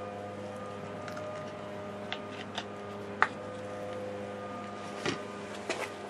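Steady motor hum holding several fixed pitches, with a few short sharp clicks and taps scattered through it, the sharpest about three seconds in.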